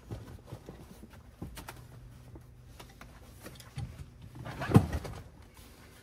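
Scattered light knocks and rustles of a person moving about and settling into a car's back seat, with one louder thump about five seconds in.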